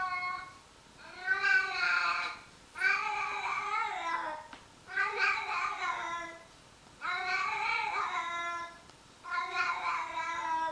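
A domestic cat meowing in long, drawn-out calls: five in a row, each lasting over a second, about one every two seconds, with the pitch rising and then falling.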